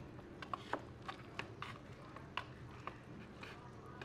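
Plastic fork stirring instant fried noodles in a cup, clicking and scraping against the cup wall in a run of about a dozen irregular sharp ticks, over a steady low hum.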